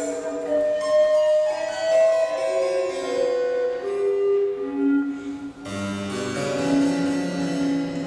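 Recorder and harpsichord playing contemporary chamber music, with long held notes over moving lines; a lower part comes in about three-quarters of the way through.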